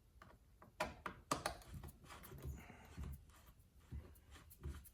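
Faint handling sounds: a few light clicks and taps, with a soft rustle or scrape partway through.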